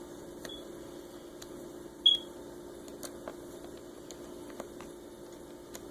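Faint clicks and taps of small parts being handled on an open laptop during disassembly, over a steady low hum. One sharper click with a brief high ring about two seconds in.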